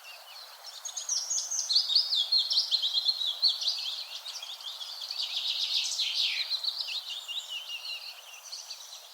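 Morning forest birdsong: several small songbirds chirping and trilling in a dense, overlapping chorus, over a faint steady hiss. The chorus swells about a second in and thins out near the end.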